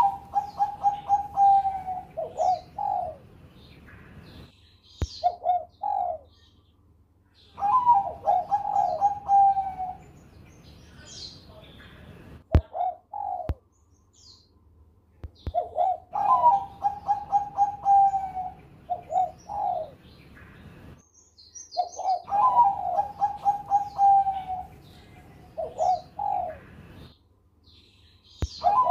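Caged zebra dove (Bangkok-bred perkutut) singing its cooing song: a rising first note, then a fast stuttering run of coos and two or three separate notes, repeated about every six to eight seconds.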